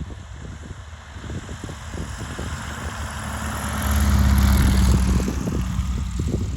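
Light propeller aircraft's piston engine running on its first flight after an engine overhaul, growing louder to a peak about four seconds in, then easing slightly.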